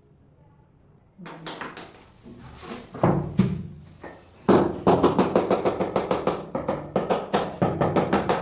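Background music with a quick, steady percussive beat, coming in about a second in and getting louder and denser about halfway through.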